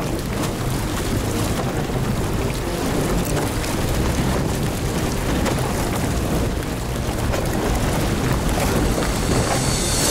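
A Toyota 4x4's wheel churning through overflow water and broken ice on a frozen road, a steady rush of splashing and grinding slush over a low engine rumble.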